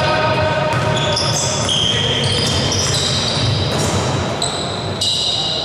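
Basketball being dribbled on a hardwood gym court, with high, repeated squeaks of players' shoes on the floor as they run and cut.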